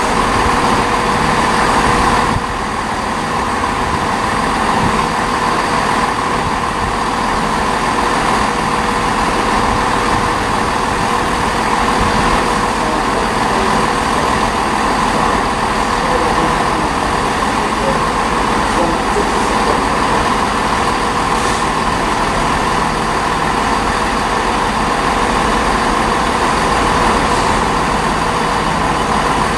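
Class 66 diesel locomotive's two-stroke V12 engine running steadily as it hauls a train of loaded spoil wagons at low speed: a continuous drone with a thin steady hum over it, dipping slightly in level about two seconds in.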